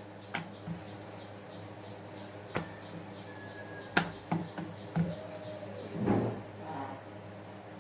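Wooden rolling pin working chapati dough on a wooden board, with a few sharp knocks, the loudest about four seconds in. A small bird chirps steadily in the background, about three short high chirps a second.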